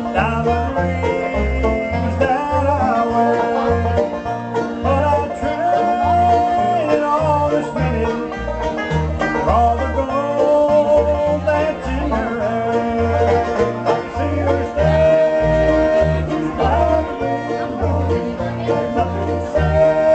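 Live bluegrass band playing: banjo picking over acoustic guitars, with a steady pulsing bass line underneath.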